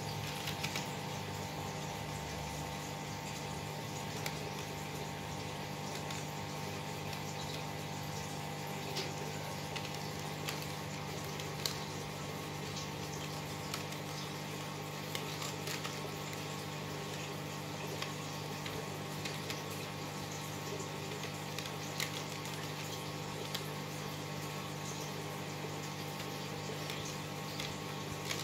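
Aquarium pump running with water bubbling: a steady hum under a wash of bubbling, with scattered small clicks.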